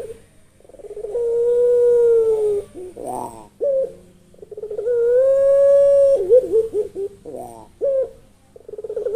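A puter (kept turtle dove) cooing: two long, drawn-out coos, each led in by a few quick stuttering notes, with short choppy notes between them.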